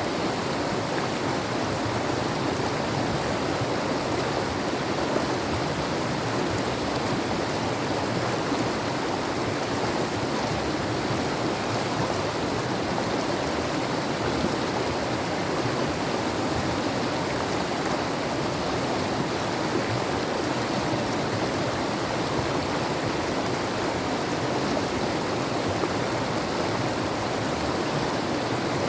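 Steady rushing of a fast mountain river.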